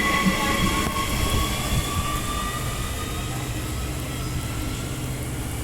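Electric suburban train pulling away into the distance: a high whine of a few tones slowly falling in pitch and fading, over a low steady hum.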